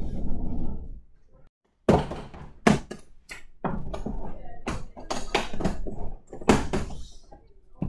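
Hard-shell Bach instrument case being handled: its latches snap open in a run of sharp clicks and thunks, and the lid bumps as it is lifted near the end.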